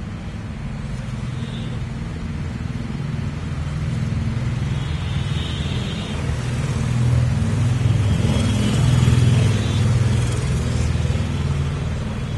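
Low, steady rumble of road traffic. It swells as heavier vehicles pass, about seven to ten seconds in.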